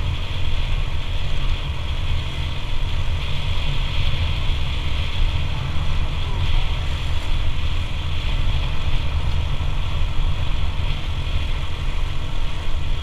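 Automatic scooter riding along with its engine and road noise running steadily, under a heavy low rumble of wind on the microphone.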